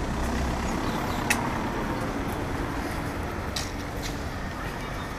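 Steady rumble of road traffic, with a sharp click about a second in.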